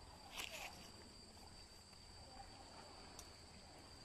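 Near silence: a faint, steady high-pitched drone, with a short rustle about half a second in as a nylon cast net is gathered up in the hands.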